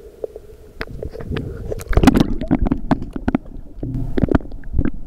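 Rumbling handling noise from a handheld camera being moved about, with scattered knocks and clicks, busiest about two seconds in and again near four seconds.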